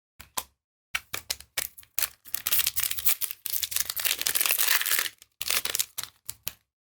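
Magic: The Gathering cards and a booster pack being handled by hand. A run of sharp clicks and snaps comes first, then a dense stretch of crinkling and tearing from the pack's foil wrapper in the middle, then more clicks as the cards are sorted.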